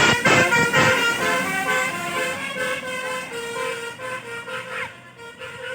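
Telolet basuri, a multi-tone bus horn, playing a tune of stepped notes, loudest at the start and fading toward the end.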